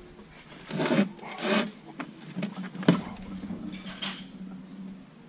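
Cast-iron hand arbor press being worked against a wheel stud in a steel axle flange: metal scraping and rubbing, with one sharp knock about three seconds in.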